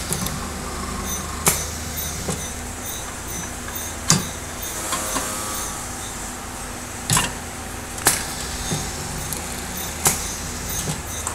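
Riveting press setting rivets into a metal louvre blade strip: five sharp metallic strikes, one to three seconds apart, over a steady low machine hum.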